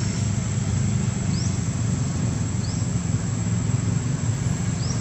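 Steady low engine-like rumble, with a short, high rising chirp repeating about every second and a quarter.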